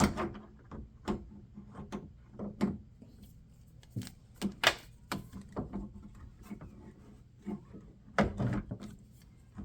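Handling and fitting of a car door handle and its plastic linkage clip: scattered clicks, knocks and rubbing, with the loudest knocks a little before halfway and again near the end.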